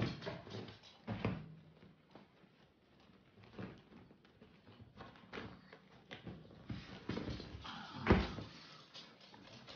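A cat jumping and pouncing on a bed: scattered soft thumps as it lands, the loudest about eight seconds in.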